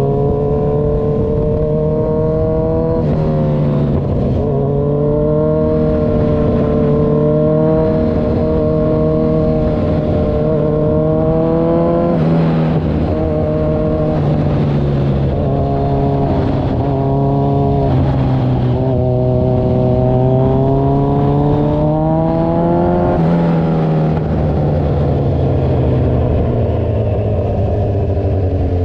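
Kawasaki Z1000 Sugomi's inline-four engine running through an aftermarket Avionic V4 exhaust, held at a fast idle. It is revved gently several times, the pitch climbing slowly and then dropping back sharply.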